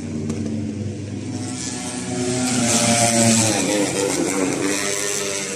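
Racing motorcycles passing at speed on the circuit, their engine notes high and gliding up and down in pitch, loudest about three seconds in.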